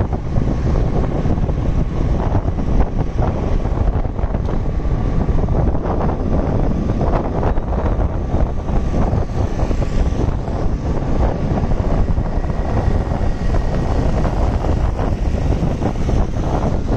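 Steady wind rumble on the microphone of a moving motorcycle, with the motorcycle's engine running underneath.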